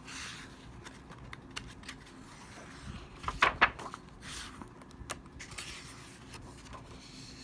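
Handling of a hardcover picture book: soft paper rustles and light clicks as a hand slides over the page and turns it, with a couple of sharper taps about three and a half seconds in.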